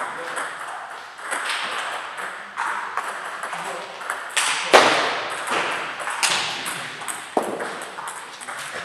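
Table tennis ball clicking off paddles and the table in a rally, with more ball clicks from other tables, echoing in a large hall. One sharp crack just under five seconds in is louder than the rest.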